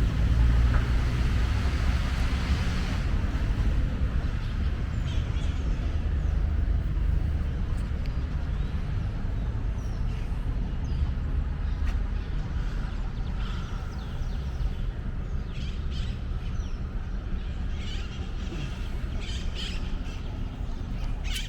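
Urban park ambience: a steady low rumble of traffic with birds chirping now and then.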